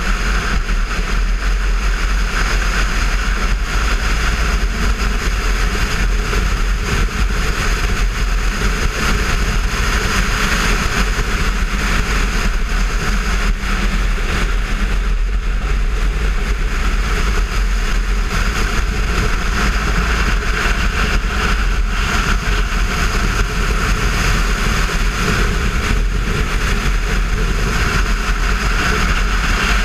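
On-board sound of a Kawasaki Versys 650 parallel-twin ridden at steady road speed: wind rushing over the microphone with the engine running underneath, a deep, even rumble that does not let up.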